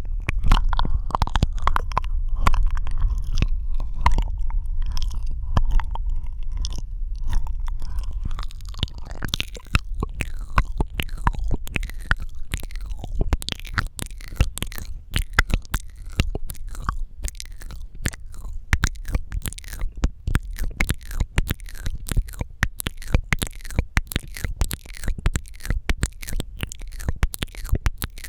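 Close-miked wet mouth sounds: tongue clicks and lip smacks, sparse over a low rumble at first, then a dense, rapid run of clicks from about nine seconds in.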